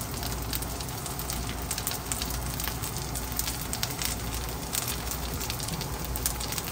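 Spring onion and egg pancake (jeon) frying in oil in a pan, a steady sizzle with frequent small crackles.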